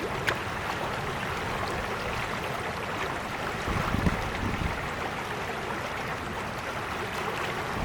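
Creek water flowing and babbling steadily over stones, with a brief low rumble about halfway through.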